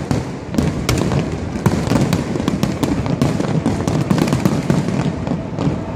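Fireworks display going off: many sharp cracks and bangs in quick succession over a continuous low rumble.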